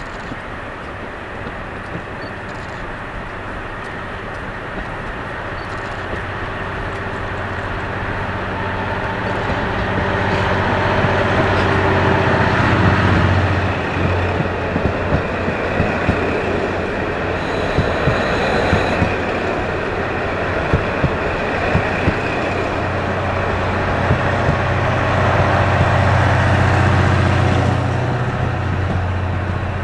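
KiHa 183 series diesel multiple unit running past close by: the low drone of its diesel engines grows louder as it approaches. Then the wheels click regularly over the rail joints as the cars go by, with a brief high squeal a little past the middle.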